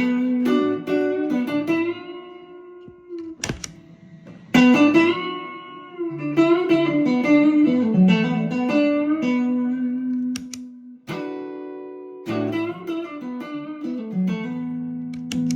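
Electric guitar with a clean tone, played through an amp on a clean setting and the JHS NotaDumble pedal: picked notes and ringing chords in phrases, with short lulls about three to four seconds in and again near eleven seconds.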